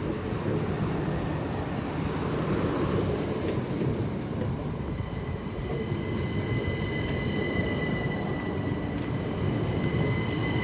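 A Class 377 Electrostar electric multiple unit rolling slowly past with a steady rumble. From about five seconds in, its wheels add a steady high-pitched squeal.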